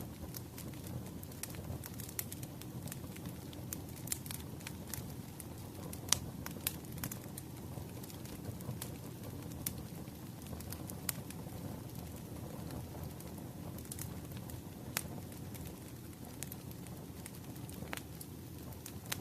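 Firewood burning briskly: a steady low rush of flames with scattered crackles and sharp pops from the logs, the loudest pop about six seconds in.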